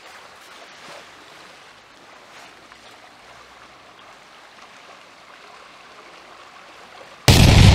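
Faint, steady sound of running water. Near the end a sudden loud, deep boom cuts in.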